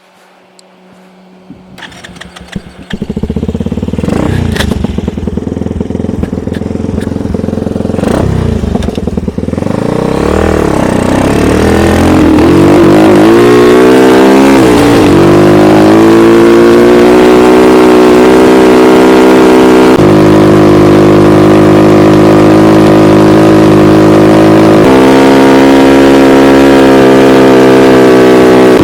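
Homemade snowmobile's engine starting about two seconds in, revving up and then running loud and steady under throttle, its pitch shifting in steps a few times near the end.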